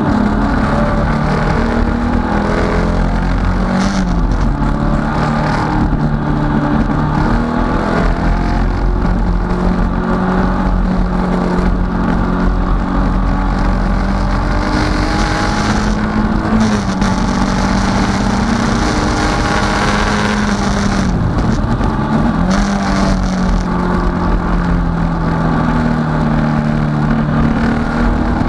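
Datsun 510 race car's four-cylinder engine running hard at high revs, heard from inside the cabin, its note holding steady between three brief dips in pitch at gear changes.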